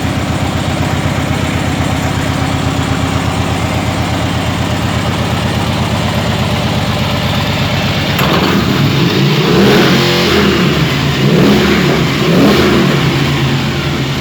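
Motorcycle engine idling with an even, pulsing beat, then about eight seconds in the throttle is blipped several times, the revs rising and falling with each blip.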